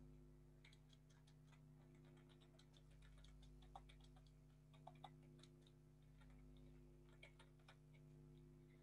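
Near silence with faint, irregular computer keyboard typing clicks over a low steady electrical hum.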